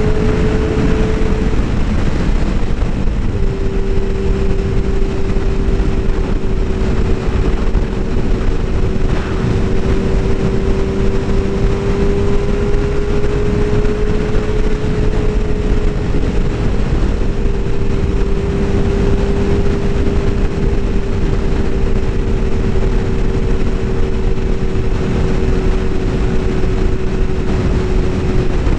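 Motorcycle cruising at a steady speed: heavy wind rush over the rider's microphone with a steady engine drone under it.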